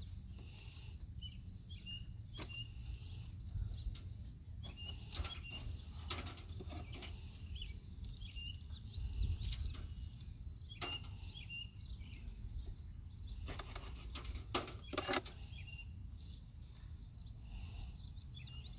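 Hive tool scraping burr comb off wooden hive frames, with scattered sharp clicks and knocks. Birds chirp briefly and repeatedly in the background over a low rumble.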